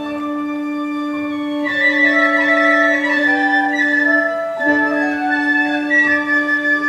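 Pit orchestra playing a slow instrumental passage: a low note held throughout beneath long, sustained melody notes that change about once a second.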